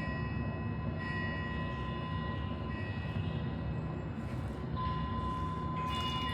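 Meditation soundscape: a steady low rumbling noise bed with sustained high bell or chime tones ringing over it, one growing stronger about a second in and another about five seconds in.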